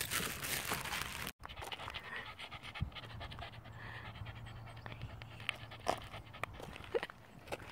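A cockapoo panting quickly and rhythmically close to the microphone. A rush of noise at the start cuts off abruptly about a second in.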